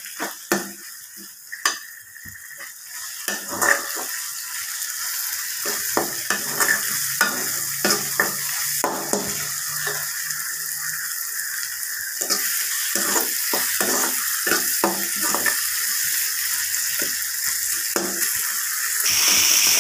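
Onion-tomato masala with crushed garlic and turmeric sizzling in oil in a metal kadai, stirred with a metal ladle that scrapes and knocks against the pan in irregular strokes. The sizzle grows louder about four seconds in and again after about twelve seconds.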